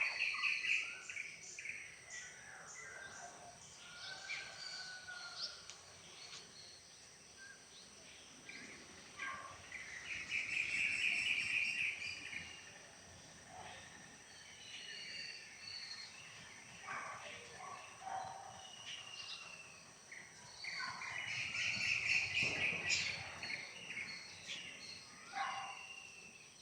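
Several birds calling in a village garden soundscape: loud chattering bursts near the start, about halfway and again near the end, with short falling whistled notes between. A steady high-pitched whine runs underneath throughout.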